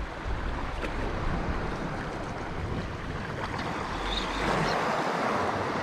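Sea washing against rocks at the water's edge, with wind on the microphone; the wash swells louder about four seconds in.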